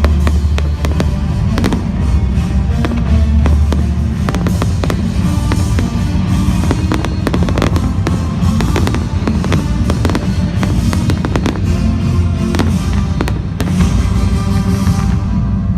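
Fireworks going off in rapid, repeated bangs and crackles over loud music with heavy bass. The high crackling fades out near the end.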